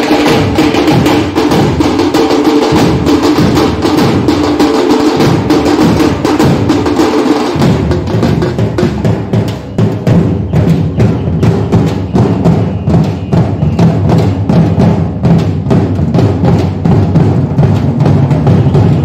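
Dhol pathak drumming: several large Maharashtrian dhol barrel drums beaten with sticks in a fast, steady rhythm. The drumming grows deeper and fuller about a third of the way in.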